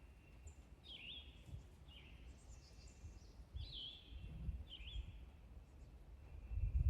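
Songbirds calling: short slurred whistled notes repeated about once a second, with a few thinner, higher chirps, over a low rumble.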